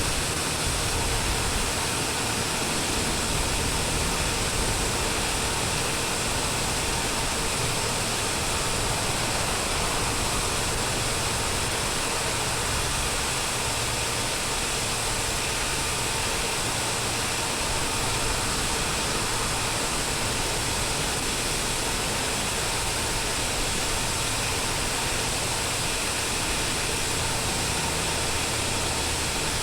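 Airliner cabin noise: a steady rush of jet engines and airflow heard from inside the passenger cabin, even and unchanging, with a faint hum under it.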